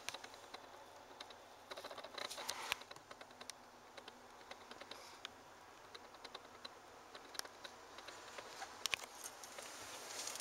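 Faint scattered clicks and rustles of a handheld camera being moved around inside a car's cabin, over a low steady hiss.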